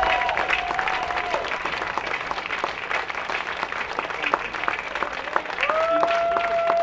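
Crowd applauding, with a few held calls over the clapping just after the start and again near the end.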